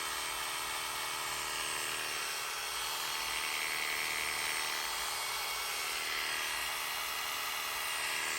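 Heiniger Saphir battery-powered grooming clipper running at its single speed of 2650 strokes per minute: a steady, even-pitched buzzing whine.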